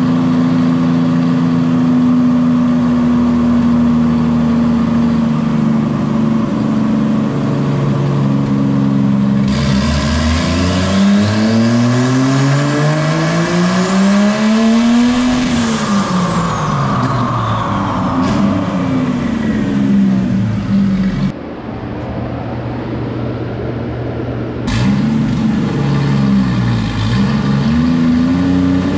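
Turbocharged Jeep Cherokee XJ engine making a dyno pull. It runs steadily, then about ten seconds in the revs climb for about six seconds with a rising turbo whistle, ending in a short burst of hiss as the throttle closes. The revs then fall away, and near the end it is blipped up and down a couple of times.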